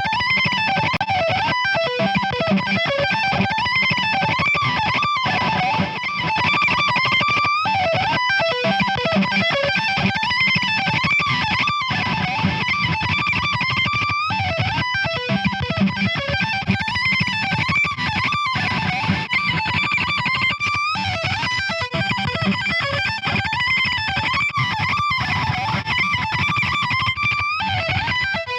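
High-gain electric guitar lead through the Brainworx Diezel VH4 amp-sim plugin, playing a melodic solo line with string bends and vibrato over a heavy, steady rhythm backing.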